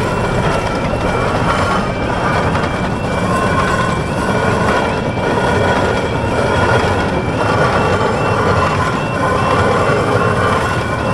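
Level crossing warning alarm sounding its repeating two-tone yelp while a miniature railway train runs across, its wheels giving a continuous rumble on the rails.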